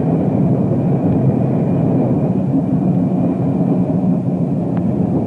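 Trolley car running along the track with a steady rumble of wheels on rail.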